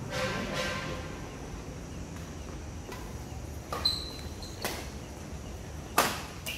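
Badminton rackets hitting a shuttlecock during a rally: four sharp hits spread over the second half, the loudest and nearest near the end. A brief voice call comes at the very start.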